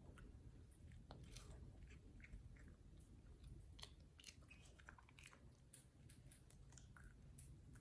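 A dog chewing a freeze-dried raw chicken treat: faint, irregular crunching and small clicks of its teeth.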